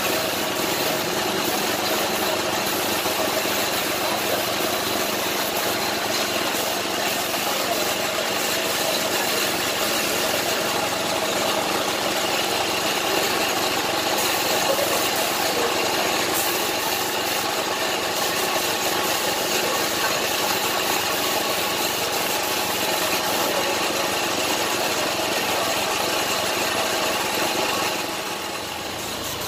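Air compressor running steadily, supplying air to a paint spray gun.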